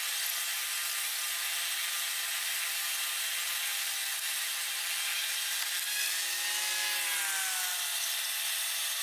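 Steady whine of an aircraft turbine, several tones over a hiss, with its pitch sagging slightly about six to seven seconds in.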